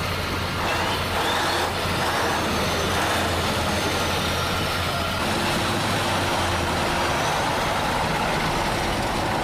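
Heavy truck engine running steadily under load, a continuous roar with a low hum and a faint high whine that rises and falls.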